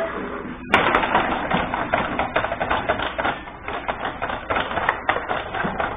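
Rapid, irregular clatter of table hockey play on a Benej table: plastic players on their rods and the puck clicking and knocking against each other and the boards. The clatter starts sharply just under a second in and goes on without a break.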